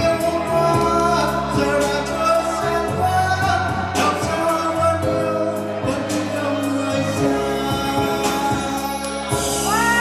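A man singing into a microphone over instrumental accompaniment, holding long notes.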